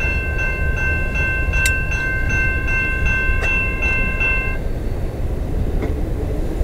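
Level-crossing warning bell ringing steadily over the low rumble of a freight train's last cars rolling away. The bell cuts off about two-thirds of the way through, a sign that the train has cleared the crossing and the gates are going up.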